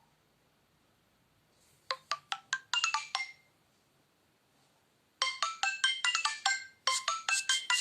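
Preloaded ringtones from a Nokia Lumia 521: about two seconds in, a short tone of quick, bright plinking notes lasting just over a second; after a pause, a new tone starts about five seconds in as a fast run of chiming notes that keeps going.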